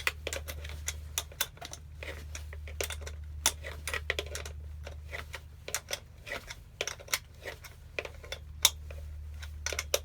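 Irregular metal clicks and clinks of a 10 mm spanner working a nut and bolt on a scooter.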